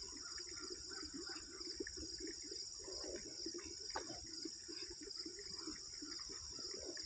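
Steady high-pitched chirring of crickets in late-summer pasture grass, with a run of soft, rapid, irregular rustling or scraping strokes closer by.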